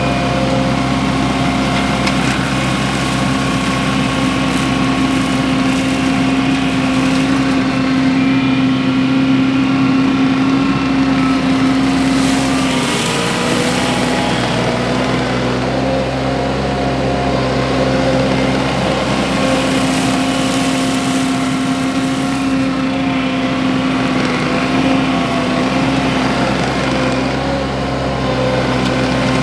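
Wacker Neuson SM120 mini skid steer running steadily while driving a Baumalight MS530M mulcher, a constant engine drone whose pitch sags briefly about halfway through, as under load, then recovers.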